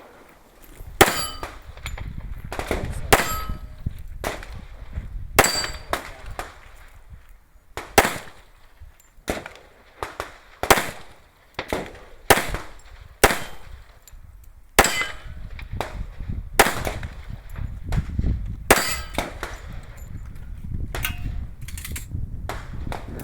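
A string of around twenty gunshots at an uneven pace of roughly one a second. Many are followed by a short metallic ringing of steel targets being hit.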